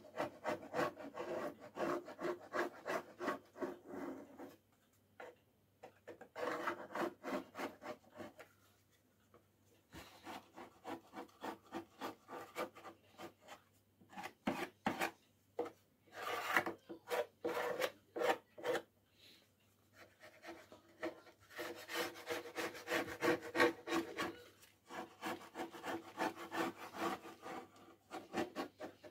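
Flat metal hand scraper scraping paint off a wooden cabinet in runs of quick short strokes, about three a second, with short pauses between runs. The paint has been softened with chemical paint stripper.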